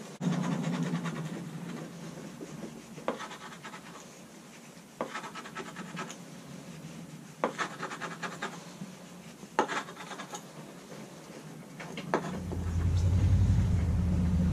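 Wooden scraper scraping acetone-softened traction-mat adhesive off a jet ski's gel-coat deck, in a series of short scraping strokes a second or two apart. Near the end a low rumble comes up underneath.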